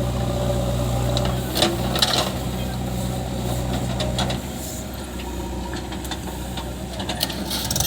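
Diesel engine running steadily, dropping in level about four seconds in, with a few short knocks and clanks over it.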